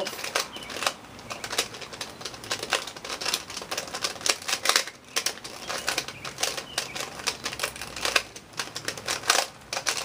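Stiff Eastsheen 2x2 puzzle cube being turned fast by hand: a rapid, irregular run of plastic clicks and clacks as the layers are twisted. The cube is stiff and turns hard.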